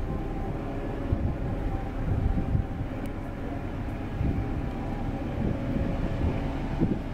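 Diesel locomotive approaching at the head of a 30-wagon container freight train: a steady low engine rumble with faint steady tones above it.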